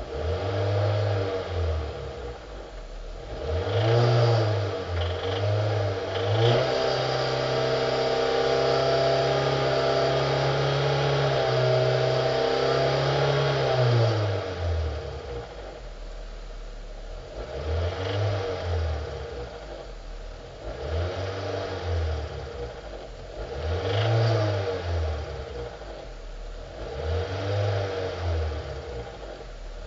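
2005 Hyundai Sonata's 2.4 L four-cylinder petrol engine being revved: several short blips of the throttle, one rev held high for about seven seconds near the middle, then more blips dropping back to idle each time. The engine has a knock that the owner traced to worn crankshaft bearings.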